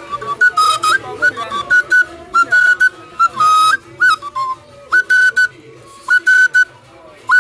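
Igbo oja, a short wooden end-blown flute, played in short shrill phrases. A high note is held for a fraction of a second again and again, each one entered with a quick upward slide, with short drops in pitch between the phrases.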